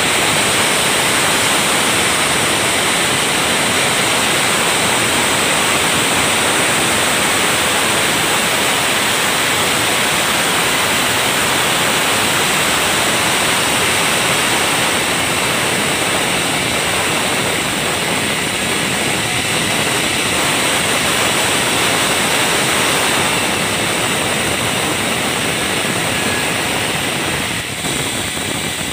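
Tong Cheng band sawmill running and sawing a balsa log: a loud, steady rushing noise that dips briefly near the end.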